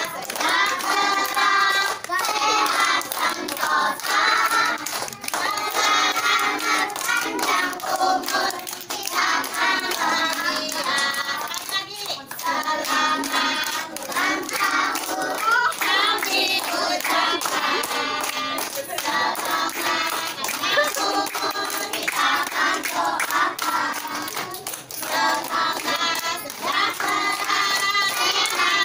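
A group of children and adults singing a birthday song together, clapping along in time.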